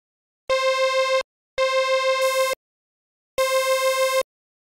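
Arturia OP-Xa V software synthesizer playing the same bright note three times, each held for under a second with short gaps between. Each note has a quick, regular wobble in level and stops abruptly.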